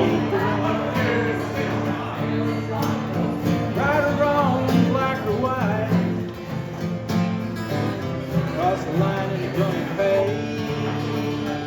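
Live country-style music played on acoustic guitar, with a lead melody line over held low notes.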